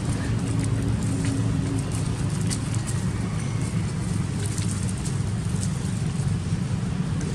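A steady low mechanical hum with a few faint ticks scattered through it.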